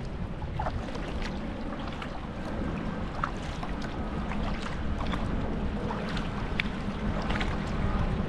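Sea kayak under way: paddle strokes in the water, with many small irregular splashes and drips, over a steady low wash of wind and sea.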